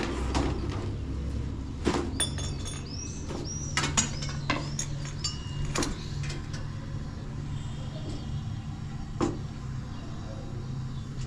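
Steady low background hum with scattered knocks and taps, and a small bird chirping several times about two to three seconds in.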